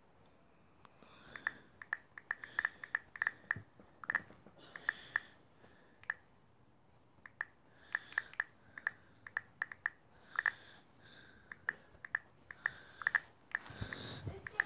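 Irregular clicks of typing on a smartphone's touchscreen keyboard, coming in quick runs with a short pause midway.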